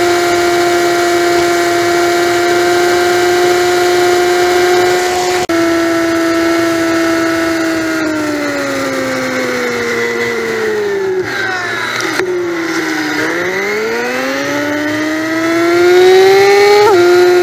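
Honda Magna V4 motorcycle engine running at a steady highway pitch, with a brief break about five seconds in. About halfway through its pitch falls for several seconds as the bike slows, then climbs and grows louder as it accelerates, dropping suddenly just before the end.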